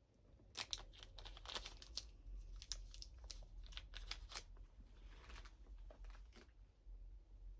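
Blind-box packaging being handled, crinkling and rustling in a string of short crackles.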